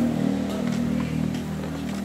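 A steady, low engine hum that slowly fades away.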